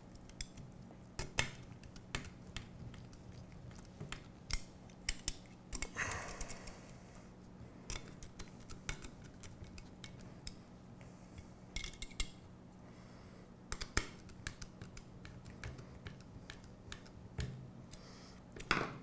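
Nut driver and wrench tightening M3 bolts and lock nuts on an aluminium C-channel: scattered light metallic clicks and taps, with a short rasping scrape about six seconds in and another about twelve seconds in.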